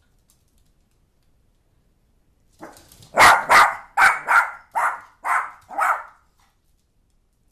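A dog barking: after a pause, a quick run of about seven short, sharp barks over roughly three seconds, starting about two and a half seconds in.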